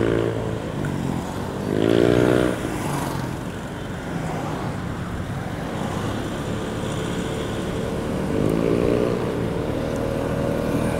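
Motorcycle engine running under way, with its pitch rising as it speeds up about two seconds in and again around eight seconds in.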